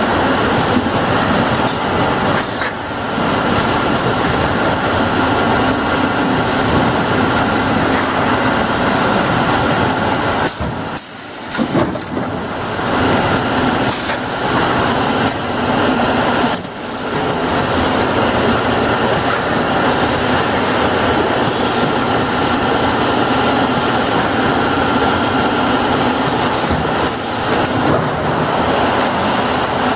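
Oil bottle filling, capping and case-packing line running: a loud, steady mechanical din of conveyors and packing machinery with a faint steady whine, broken by a few short sharp noises about 11 and 17 seconds in.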